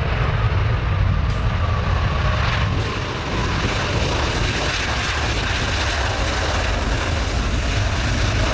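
Airbus Beluga XL's twin Rolls-Royce Trent 700 turbofan engines running steadily as the jet rolls along the runway: a deep rumble with a faint high whine over it that slides a little lower in pitch over the first few seconds.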